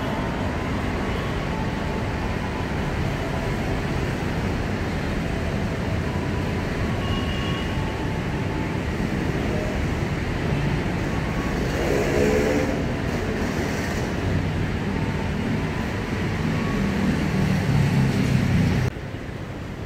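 Electric commuter trains at a station platform: a steady rumble of train running on the rails, with a brief rising-and-falling motor whine about twelve seconds in. A low rumble grows louder near the end and then cuts off suddenly.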